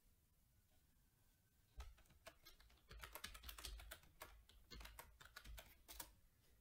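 Faint keystrokes on a computer keyboard: a quick, irregular run of taps starting about two seconds in and stopping shortly before the end.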